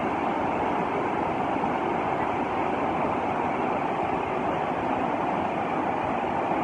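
Swollen floodwater rushing over river rapids: a steady, unbroken rush of churning white water.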